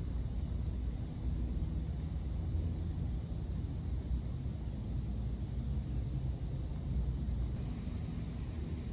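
Steady, high-pitched insect chorus over a low, steady rumble.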